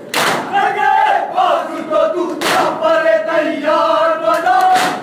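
Crowd of men chanting a noha in unison, cut by three loud chest-beating slaps (matam) about two and a half seconds apart.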